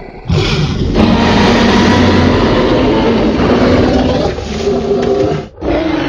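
Dinosaur-roar sound effects: a loud, sustained roar over a deep rumble. It breaks off for a moment near the end, then starts again.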